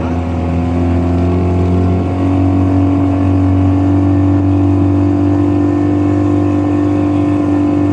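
Motor launch's engine running steadily, its pitch rising about two seconds in as it speeds up, then holding at the higher speed.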